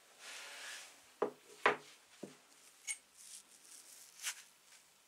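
Parts of an old two-speed hand drill being handled and taken apart: a brief rubbing rustle, then three sharp metal knocks in quick succession, followed by a few lighter clicks.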